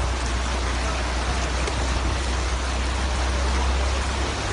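Car driving slowly through deep floodwater: a steady rush and slosh of water against the car, over a constant low rumble from inside the car.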